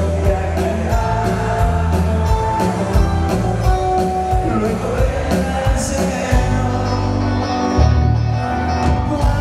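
Live band playing with a steady drum beat, bass, electric guitar and keyboard.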